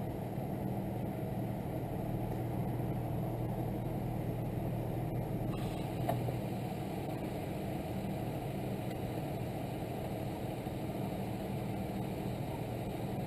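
An engine idling steadily with an even low hum.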